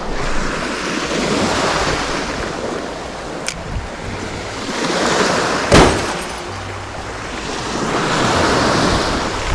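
Small waves breaking and washing up a beach in three slow surges, with a sharp click a little past halfway through.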